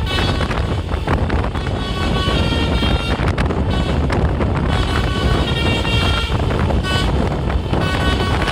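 Basuri telolet horn on a tour bus playing a tune of quick stepping notes in several runs, over the rumble of the bus engine.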